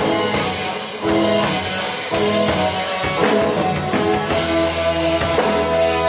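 Live band music with a drum kit keeping a steady beat under guitar and sustained notes.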